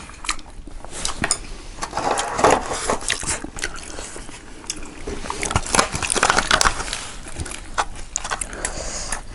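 Close-miked chewing and crunching of fried restaurant food, with many short, irregular crackles and clicks.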